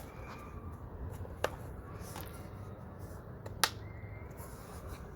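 Two sharp clicks about two seconds apart over a steady low background rumble.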